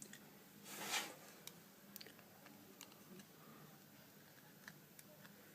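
Faint small clicks and taps of a phone's LCD panel being handled and slotted back into its frame, with one brief soft swish about a second in.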